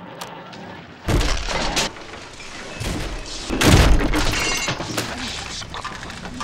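Several crashes with glass breaking, the loudest a little past halfway, followed by a brief high tinkle of falling glass.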